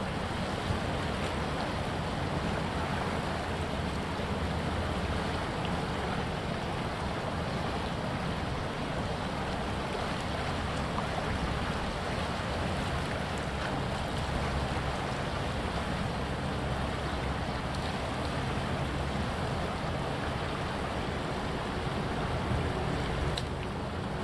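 Steady rushing noise of wind and the flooded Mississippi River's fast-flowing water, even throughout, with no distinct events.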